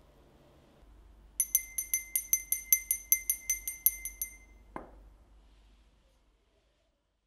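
Small hand bell rung rapidly, its clapper striking about five or six times a second for about three seconds with a bright, high ring, then stopped short. A single knock follows half a second later.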